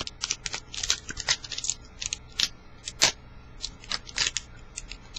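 A trading card pack's wrapper crinkling and tearing as it is worked open by hand, with cards sliding and flicking: a string of short, sharp, irregular crackles. The pack is stubborn and hard to open.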